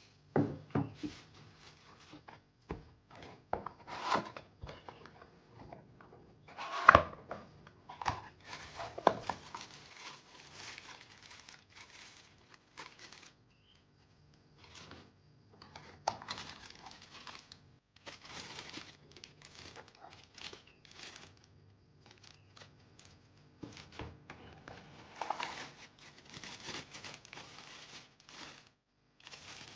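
Keyboard packaging being unwrapped: plastic and paper crinkling and tearing in irregular bursts, with a few sharp knocks, the loudest about seven seconds in.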